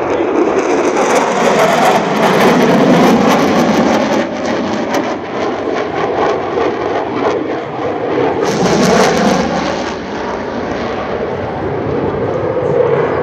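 Boeing EA-18G Growler's twin turbofan jet engines, loud, with a ragged crackle at its strongest in the first few seconds and again about nine seconds in, easing slightly near the end, as the jet pulls hard through a high-G manoeuvre with vapour over its wings.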